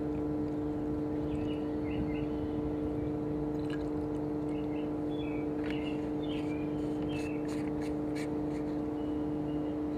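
Steady electrical hum, with faint gurgling and small squeaks as coolant is squeezed from a bottle into a magnetic drill's coolant reservoir.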